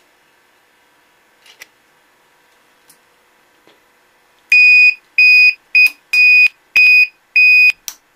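Electronic beeper on an electric pocket bike's newly wired system giving six short, loud beeps at one high pitch, spaced a little over half a second apart, as the power is switched on. A few faint clicks come before the beeps.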